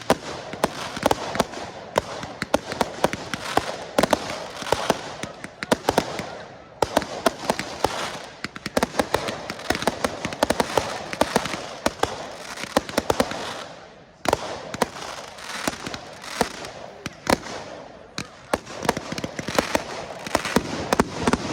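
Fireworks display going off: a dense, continuous run of sharp cracks and bangs over a crackling hiss, easing off briefly about two-thirds of the way through and then building again.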